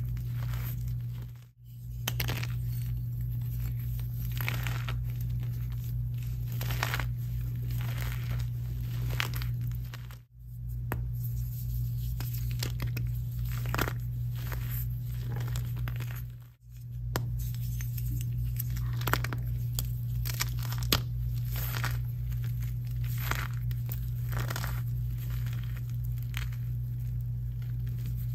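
Gym chalk blocks crushed and squeezed in bare hands, giving a dense run of gritty crunches and crumbles as the chalk breaks into powder. A steady low hum runs underneath, and all the sound drops out briefly three times.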